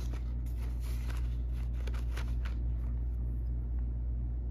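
Paper dollar bills rustling and crinkling as they are handled and tucked into a paper cash envelope, in a run of short crackles over the first two and a half seconds, then stopping. A steady low hum runs underneath.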